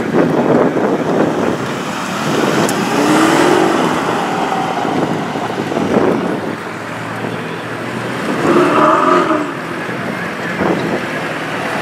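Car engines running as vehicles move past, over a steady background din, with a couple of brief swells in engine note in the middle and near the end.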